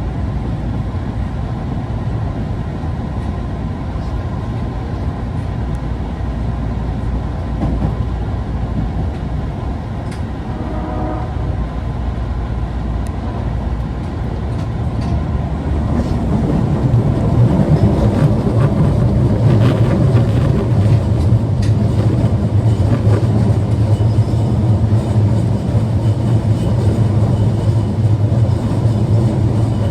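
Running noise inside an Osaka Metro 22 series subway car (car 22962) between stations in the tunnel: a continuous rumble of wheels and motors that grows louder, with a strong low hum, about halfway through. This car is singled out as one that makes an abnormal noise.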